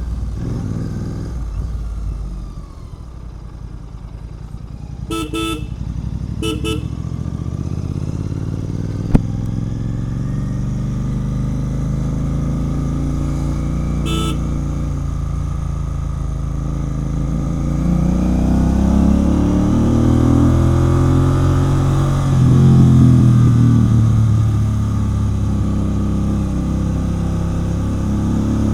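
Royal Enfield Continental GT 650's parallel-twin engine running through an aftermarket Red Rooster exhaust while riding. It eases off briefly a few seconds in, then the revs climb and fall repeatedly in the second half. Short horn honks come twice about five to seven seconds in, and once more about halfway through.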